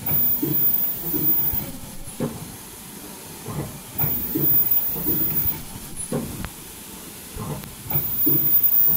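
N95 folding mask machine running: a very high-pitched whine comes on three times, about every four seconds, for a second or so each, as the ultrasonic welders bond the head loops. Between and under the whine come steady mechanical clacks and knocks from the line.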